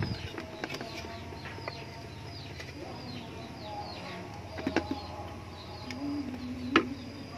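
Birds chirping in a quick series of short falling notes. There are two sharp knocks, the louder one near the end, from wooden parts and a screwdriver being handled.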